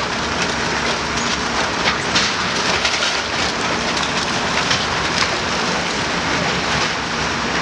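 Heavy demolition machinery at work: a steady engine hum under continual crackling and crunching of broken building debris.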